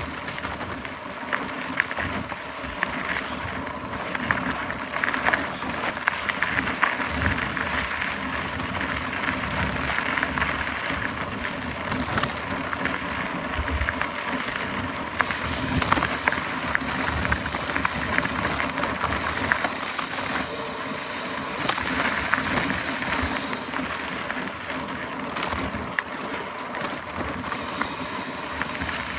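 Mountain bike being ridden along a dirt trail: a steady rush of tyre and wind noise with frequent small rattles and knocks as the bike goes over bumps.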